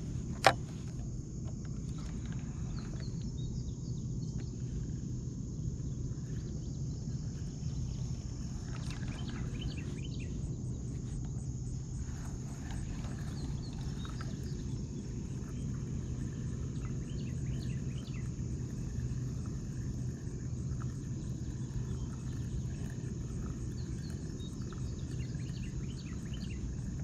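Outdoor ambience: a steady high insect drone over a low steady rumble, with faint scattered chirps and one sharp click about half a second in.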